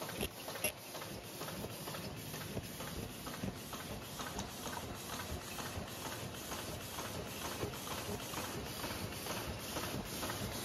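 High-speed paper cup forming machine running, a steady rhythmic mechanical clatter at about two to three strokes a second.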